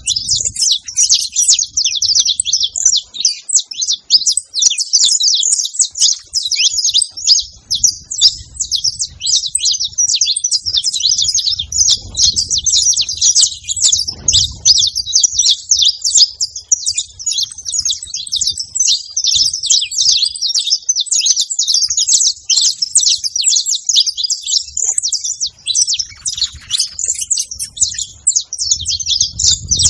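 Saffron finch calling in a continuous, rapid stream of high, sharp chirps with no pauses.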